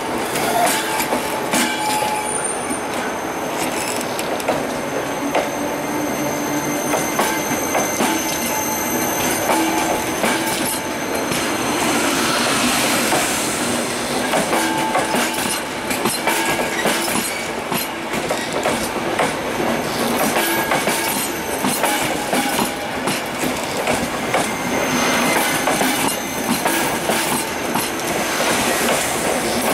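A train running on steel rails: a dense rumble with many wheel clicks over the rails, and thin squealing tones from the wheels that come and go.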